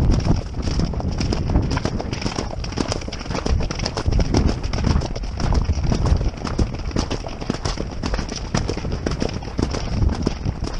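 Hoofbeats of a horse moving fast over grass turf, heard from on its back as a rapid, continuous pounding rhythm.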